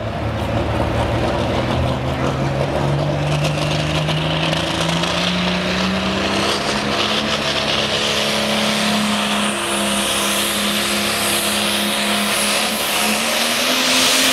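Light pro pulling tractor's diesel engine under full throttle as the Case IH pulls the sled down the track. Its note climbs steadily over the first several seconds, holds high, and rises again near the end.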